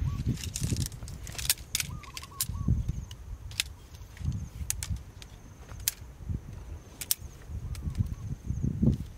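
Sectioned metal tent poles clicking and clinking as they are unfolded and joined together, in sharp, irregular clicks. Underneath, an uneven low rumble of wind buffeting the microphone.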